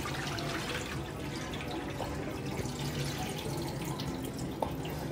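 Water splashing and draining into a stainless steel sink as chunks of goat meat are rubbed by hand in a steel bowl and the rinse water is poured off. A light knock near the end.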